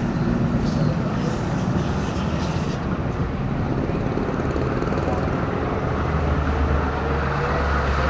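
Honda Beat FI scooter engine running steadily with a rough, simmering noise likened to water about to boil in a pot, the sign of an abnormal engine noise the owner is trying to trace.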